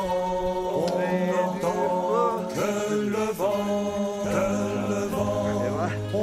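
Background music: voices singing a chant-like melody over a steady low drone.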